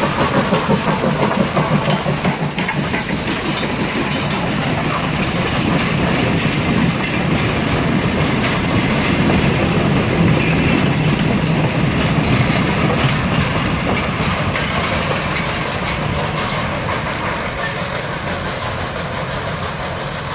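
Small 0-4-0 steam locomotive chuffing in an even beat as it passes close by, followed by its passenger coaches rolling past with wheels clicking over the rail joints. The sound eases off a little near the end as the train moves away.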